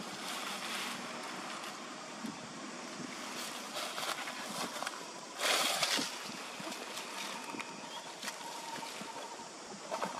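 Outdoor ambience: a steady wind-like hiss with faint scattered ticks and rustles, and one louder rustle lasting about half a second around five and a half seconds in.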